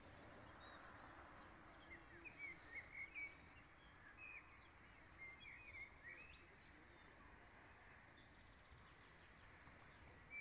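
Near silence with faint bird chirps: a scattered run of short, quick notes, mostly between about two and seven seconds in.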